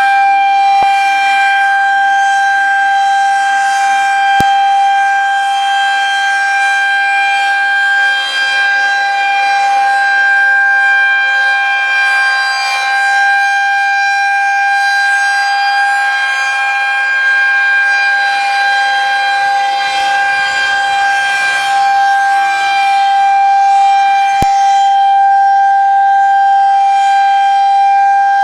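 Tornado warning siren sounding loud and close, holding one steady pitch without rising or falling.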